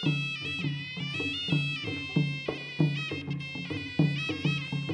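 Traditional Kun Khmer fight music: a sralai (Khmer reed oboe) plays a nasal, ornamented melody over a steady drum beat of roughly one and a half strokes a second.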